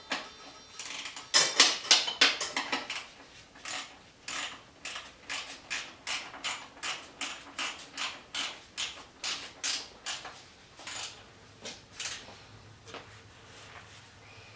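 Ratchet wrench worked back and forth, tightening a bolt, with a short click at each stroke, about two or three a second, dying away near the end.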